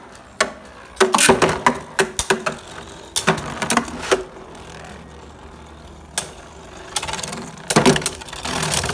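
Two Beyblade Burst spinning tops, one of them Nightmare Longinus, whirring in a plastic stadium and clashing repeatedly. Clusters of sharp plastic clacks come about a second in, around three to four seconds in, and again near the end, with a steady whir between.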